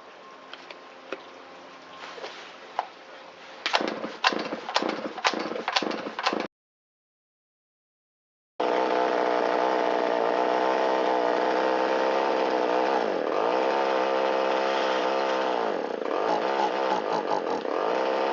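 Several sharp clicks and knocks from handling the saw, then, after a cut, a Shindaiwa 360 two-stroke chainsaw engine running steadily. Its pitch sags briefly twice as it bogs right off idle and cannot reach full throttle, the sign of a carburettor set too lean at idle.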